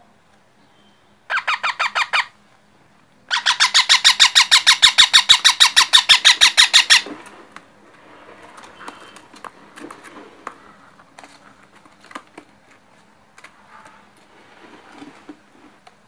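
Parakeet chick squawking in rapid runs of short harsh calls, about eight a second: a brief run of about nine calls, then a longer, louder run lasting nearly four seconds that stops abruptly.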